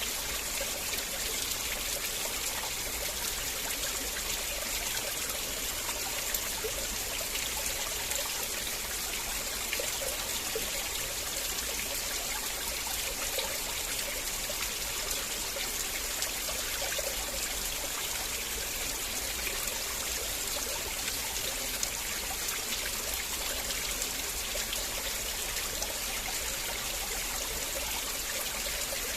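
River water flowing in a steady, unbroken babble and trickle.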